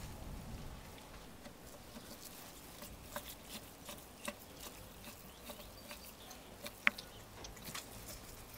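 Scattered light metal clicks and taps of a screwdriver working the clamp bolts of a roasted lamb's rotisserie spit, with the soft handling of the meat, and one sharper click about seven seconds in.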